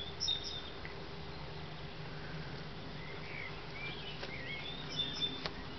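Quiet outdoor garden ambience: a steady low hum with a few scattered, faint, high bird chirps.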